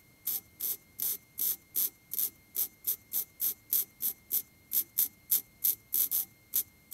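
MIG welder arc crackling in short trigger bursts, about three a second, as spot welds are laid on thin sheet steel.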